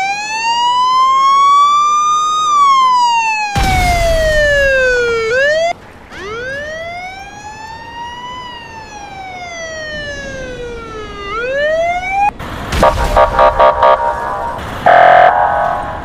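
Police car sirens wailing. First a modern electronic siren rises for about two and a half seconds, then falls away, with a noisy crash about 3.5 s in. After a break of about a second, an older-style police siren, quieter, rises and falls through one long slow wail. From about 12 s it gives way to rapid pulsing horn-like blasts and sharp bangs.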